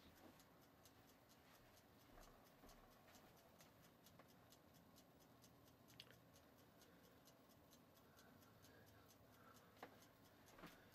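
Near silence, with a Barbie kitchen timer ticking faintly and steadily as it counts down.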